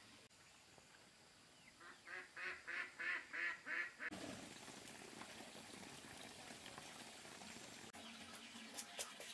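A duck quacking: a quick run of about six quacks. After about four seconds it gives way to a faint, steady hiss.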